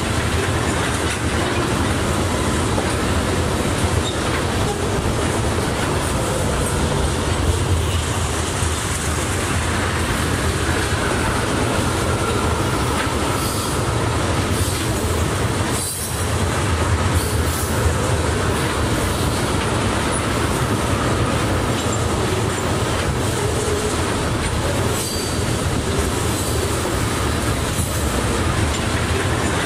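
Freight train tank cars rolling past: a steady rumble and clatter of wheels on the rails, with a faint thin wheel squeal partway through. A short break about sixteen seconds in.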